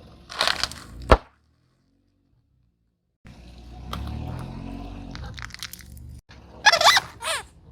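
A short crunching burst, then a sharp crack, as something is crushed under a car tyre. After a gap of silence comes a low rumbling for a few seconds, and near the end two short squeaky, wavering sounds.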